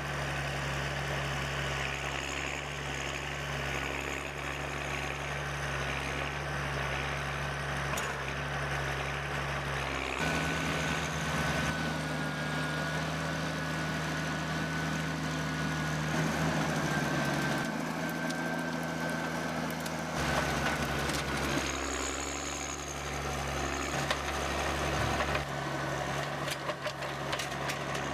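Heavy machinery engines running steadily, changing abruptly several times as one machine gives way to another, with a thin high whine through the middle stretch.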